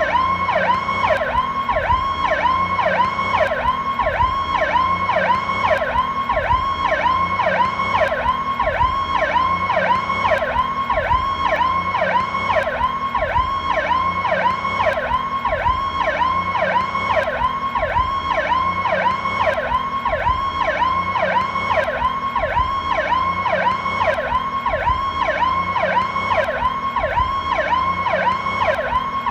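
Ambulance PowerCall electronic siren in a fast yelp, its pitch sweeping up and down about three times a second, steady and unbroken.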